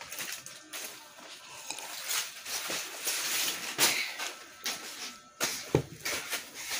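Rustling and shuffling with scattered clicks, and one dull thump near the end.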